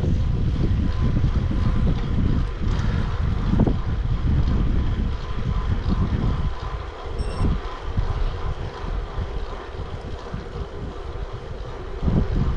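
Wind buffeting the microphone of a bike-mounted action camera while cycling, with rumbling road noise. It eases off about halfway through and picks up again near the end.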